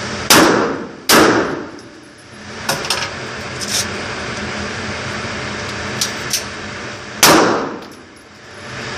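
Three gunshots, two about a second apart and a third some six seconds later, each trailing off in a long echo, with a few lighter clicks in between.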